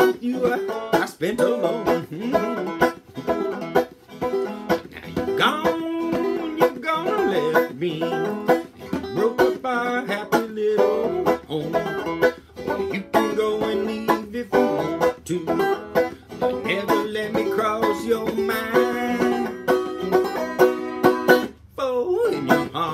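Banjo played clawhammer (frailing) style in open G tuning, a continuous instrumental break of brushed strums and picked notes, with a brief pause near the end.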